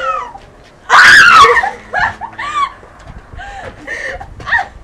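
Teenage girls shrieking: one long, loud, high-pitched scream about a second in, followed by shorter squeals and yelps, in excited reaction to whipped cream pies in their faces.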